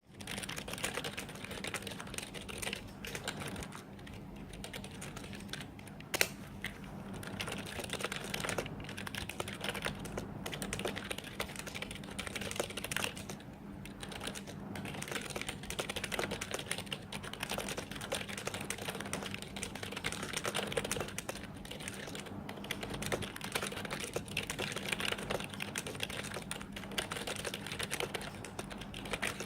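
Continuous fast typing on an i-rocks IK27 membrane keyboard: a dense, uneven patter of keystrokes, with one sharper, louder click about six seconds in.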